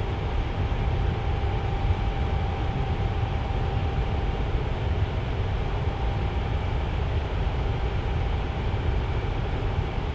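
Tower fan running steadily: an even rush of air, heaviest in the low end, with a faint thin whine over it.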